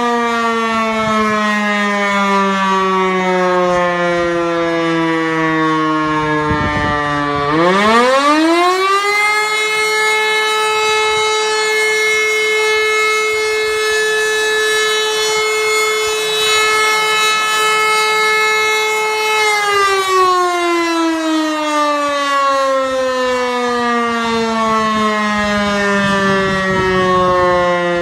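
Fire-brigade siren sounding a test alarm. Its wailing tone glides down, then winds back up steeply about seven seconds in and holds a steady pitch for about ten seconds before winding down again.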